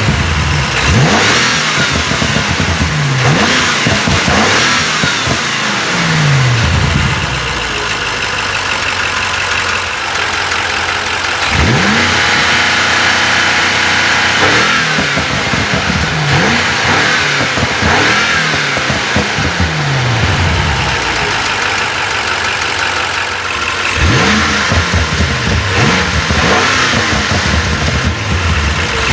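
BMW M5 Competition's 4.4-litre twin-turbo V8 free-revved again and again, each blip climbing quickly in pitch and falling back toward idle, with a thin high whine showing through at times.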